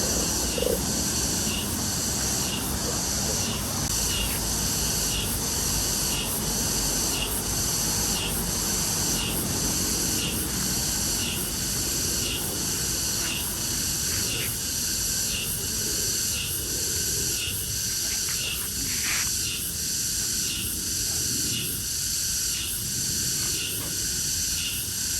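Insects singing outdoors, a high buzzing chirp that pulses evenly about one and a half times a second, over low rumbling noise.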